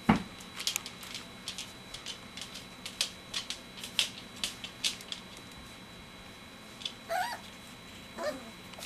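Three-week-old golden retriever puppies squealing: a short rising-and-falling squeal about seven seconds in and a second one a second later, after a run of light clicks and scuffles as the puppies play.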